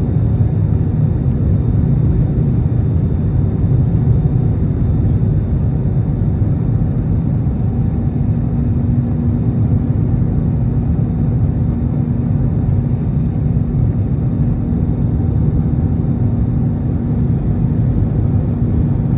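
Airbus A320 jet engines heard inside the cabin during the climb after takeoff: a steady low roar with a faint steady hum under it.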